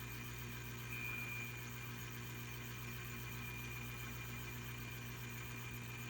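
Refrigerator running with a steady low hum and a faint high-pitched whine from its failing fan motor, which is struggling to hold its speed.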